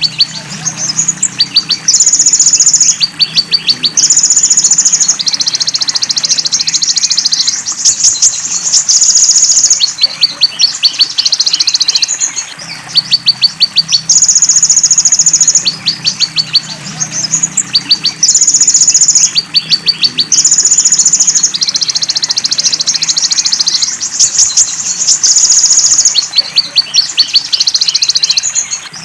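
Looped bird-training recording ('masteran') for the kolibri ninja sunbird, mixing the songs of the sunbird with golden-grasshopper ('belalang emas') and cililin calls: high, buzzy calls about a second long alternate with fast trains of sharp ticks, over and over, above a low steady background sound.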